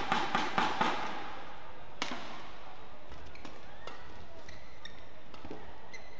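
Badminton rally: sharp cracks of rackets striking the shuttlecock and short, high squeaks of court shoes on the mat. Rhythmic crowd clapping and chanting stops about a second in.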